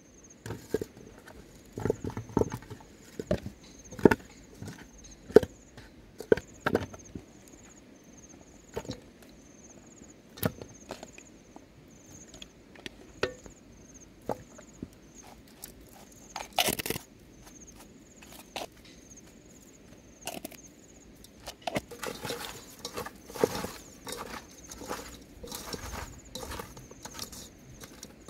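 Raw chicken feet and taro slices knocking and clattering into an aluminium pot, then the wet squelch and rustle of hands mixing the chicken feet with seasoning in the pot near the end. A faint, high chirping repeats behind it for much of the time.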